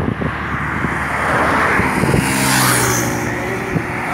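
Highway traffic: a motor vehicle passes close by, its engine and tyre noise swelling to a peak just past halfway and then fading.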